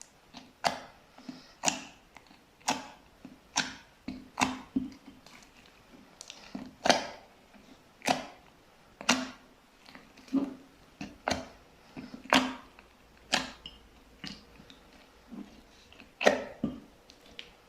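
Slime mixed with white pearl beads being squeezed and pressed by hand, giving a string of sharp wet pops and clicks about once a second, some much louder than others.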